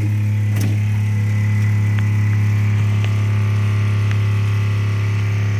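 SolarMaax 10 marine watermaker running: a steady low hum from its boost pump and Clark pump, with a few faint ticks.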